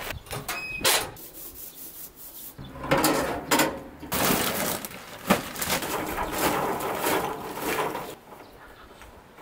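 Tarp cover rustling off a steel barbecue grill, then the metal cooking grate clanking as it is lifted. Charcoal rattles for several seconds as it is poured from a paper bag into the firebox, stopping about a second before the end.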